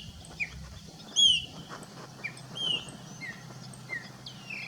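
Purple-throated euphonia (fim-fim) calling: two loud, clear, arching high notes about a second and a half apart, with shorter, softer falling notes between and after them.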